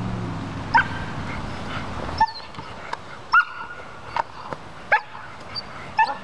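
Young German Shepherd giving sharp, high-pitched barks at the helper during protection bite work. There are about six loud barks, roughly one a second, with a few fainter yips between them.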